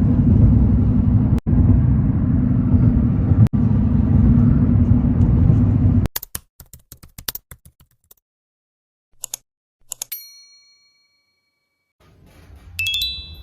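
A steady low rumble for the first six seconds, broken twice by brief dropouts, then a quick run of sharp clicks and two bell-like dings that ring on for a moment, the second one near the end made of several tones.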